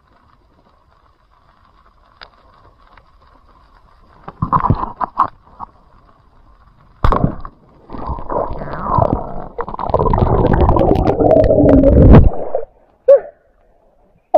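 Muffled underwater gurgling and water rushing past an underwater camera, in short bursts from about four seconds in, then a longer, loud rushing stretch as the camera rises to the surface, breaking off about two seconds before the end.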